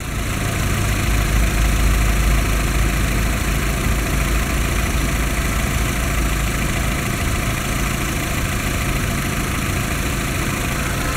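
VW Golf 4's 1.6-litre AEH four-cylinder petrol engine idling steadily, run up to show that it works.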